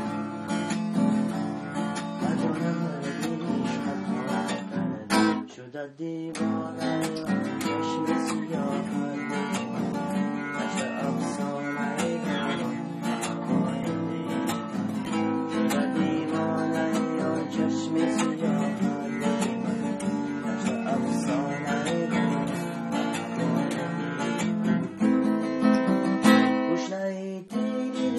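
Acoustic guitar strummed in steady chords, with a brief break about five to six seconds in.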